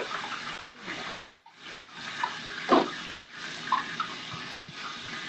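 Fat sizzling in a hot frying pan on the stove: a steady frying hiss that dips briefly a few times.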